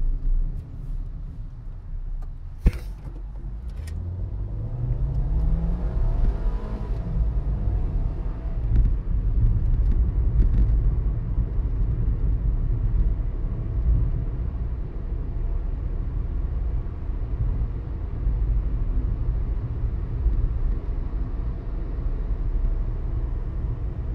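Car engine speeding up, its pitch rising for about three seconds, then a steady low rumble of engine and tyres at cruising speed. A single sharp click sounds near the start.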